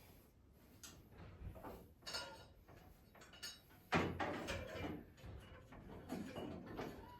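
Irregular knocks, clicks and rustles of objects being handled and moved about, busier from about four seconds in.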